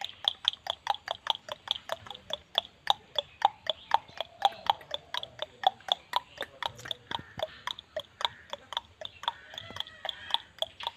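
Mouth clicks imitating a horse-drawn carriage: a quick, even run of about five clicks a second, alternating louder and softer like trotting hooves.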